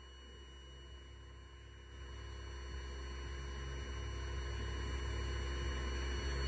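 Vibratory stress relief exciter motor clamped to a welded steel frame, running with a low hum that builds steadily in level from about two seconds in, over a faint steady high-pitched electronic whine.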